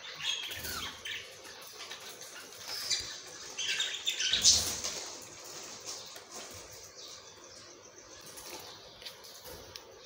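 Budgerigars in a cage chirping, with bursts of wing-flapping about half a second in and again around four to five seconds in, the loudest near the middle.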